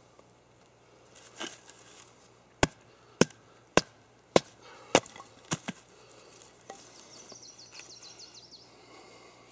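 Six sharp wooden knocks, about half a second apart: a Terava Skrama heavy knife chopping into a stick of wood.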